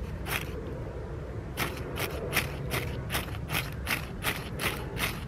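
Ferrocerium fire steel scraped hard with a striker over fatwood-dust tinder, throwing sparks: one stroke, a short pause, then a fast run of strokes at about four a second.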